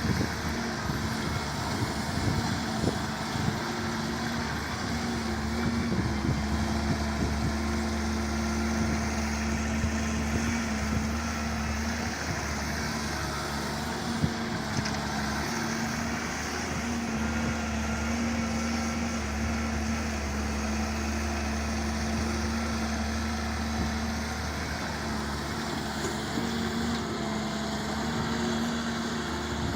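Heavy construction-machine diesel engine running steadily, with a few light knocks in the first several seconds.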